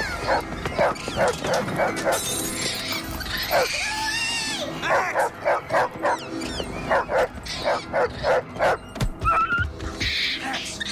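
Dog barking in fast, repeated runs, mixed with high-pitched arching shrieks and yelps as the animals scuffle, over film music.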